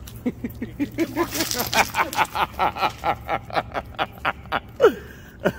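A person laughing hard: a long, unbroken run of quick 'ha' pulses, about five or six a second, with a falling squeal near the end.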